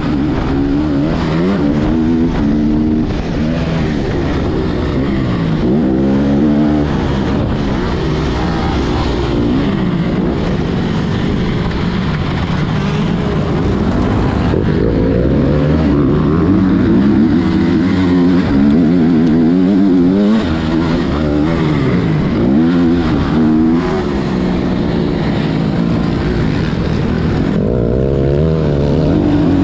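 Motocross bike engine being ridden hard, its pitch repeatedly rising and falling every second or two as the rider accelerates, shifts and backs off.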